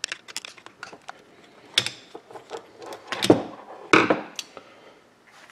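Screwdriver clicking and scraping as it backs out the Phillips screws holding the motor in a gate opener's gearbox housing, then three louder knocks, at about two, three and four seconds, as the housing and screwdriver are set down on the workbench.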